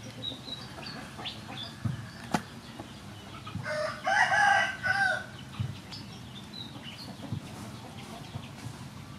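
A rooster crows once, about three and a half seconds in: a call of several pitched notes lasting about a second and a half, the loudest sound here. A few short sharp clicks come before it.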